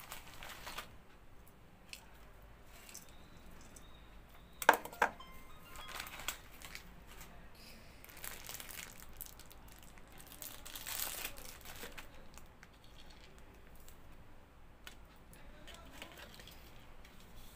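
A thin plastic snack packet crinkling and rustling as it is handled, with two sharp knocks close together a little before five seconds in.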